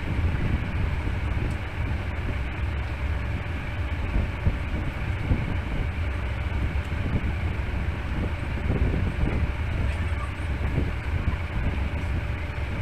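Steady low rumbling background noise with a faint hiss above it, even throughout.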